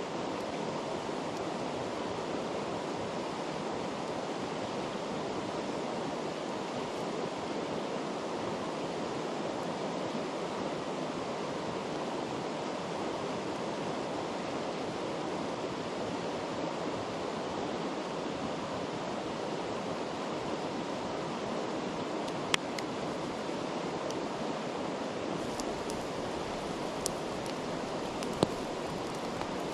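Mountain river rushing past in a steady, even hiss, with a few sharp clicks near the end.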